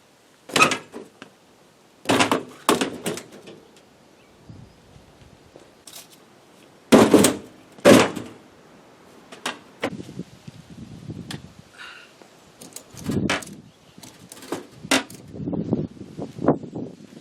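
A series of irregular knocks, clunks and thuds, a few loud and sharp with quieter rattling ones in between, as of heavy objects being bumped and handled.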